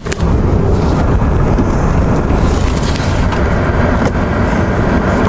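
Steady low rumble of a car on the move, with wind noise on the microphone.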